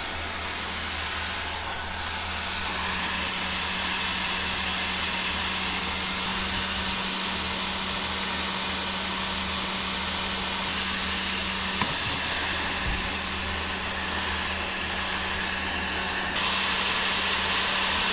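Electric hot-air gun blowing steadily with a low motor hum, growing louder about 16 seconds in, with a few faint ticks.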